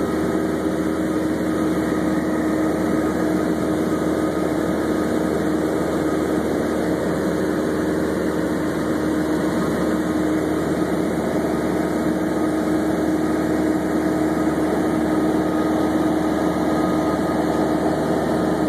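Cessna 172's piston engine and propeller droning steadily in level flight, heard inside the cabin.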